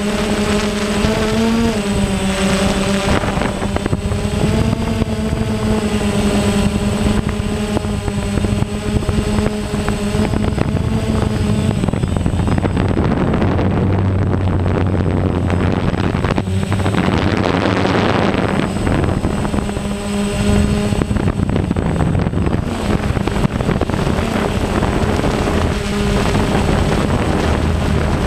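Quadcopter drone's electric motors and propellers buzzing steadily from close by, the pitch wobbling up and down with the throttle as it climbs. A stretch of rushing wind noise comes in about midway.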